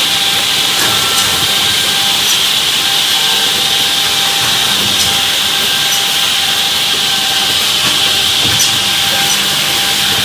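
Advantage 320 edgebanding machine running, a loud steady hiss from its motors and cutting units, with a few faint ticks.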